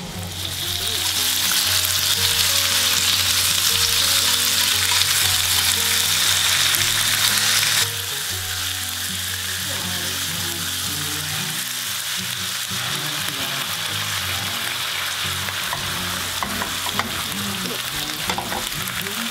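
Thin pork slices and sliced onion sizzling in sesame oil in a nonstick frying pan while being stirred. The sizzle is loud and even, then drops abruptly to a softer, steady sizzle about eight seconds in.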